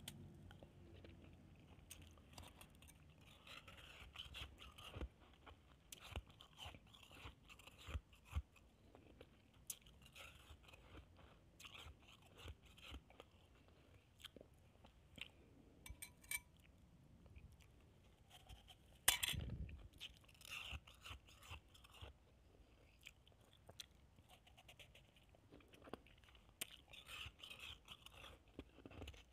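A person biting and chewing chunks of packed shaved ice, made from a frozen bottle of water, close up: a steady run of small crunches and crackles. One louder sharp crack comes about two-thirds of the way through.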